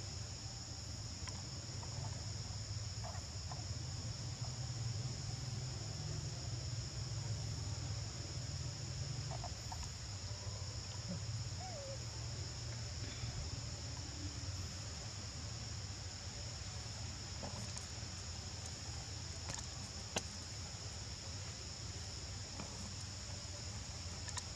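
Steady chorus of insects, a continuous high-pitched drone held on two pitches, over a low rumble, with a single sharp click about twenty seconds in.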